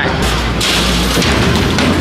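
Background music with heavy bass, loud and continuous.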